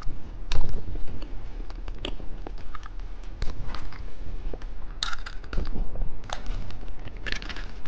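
Hamburger gummy candy being unwrapped and eaten close to the microphone: a steady run of small sharp clicks and crackles, with louder crinkly bursts about five and seven seconds in.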